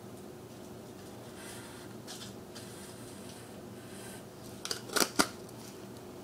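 Aquarium air pump or filter running with a steady hum, bubbles streaming into a turtle tank. About five seconds in, a quick cluster of three or four sharp clicks stands out above it.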